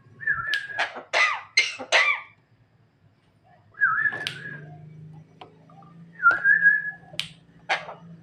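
Javan myna giving three short whistles. The first and last whistles are followed by harsh, rasping cough-like notes: a quick run of about five early on, two near the end. The bird is mimicking an old man's coughing.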